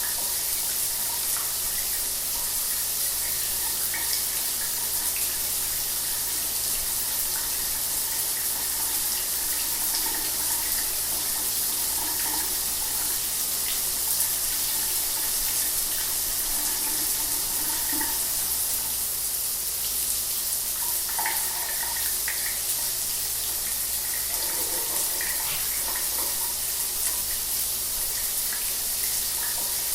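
Shower water running steadily, a constant high hiss of spray with small splashes scattered through it.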